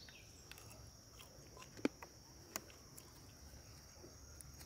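Steady high-pitched drone of insects, with two sharp handling clicks a little under two seconds in and again about two and a half seconds in.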